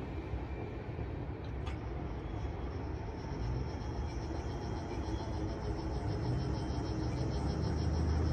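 Low rumble of a freight train pulling away after clearing the crossing, with a faint, evenly pulsing insect trill above it from a few seconds in. A single click about two seconds in, and the low rumble grows slightly near the end.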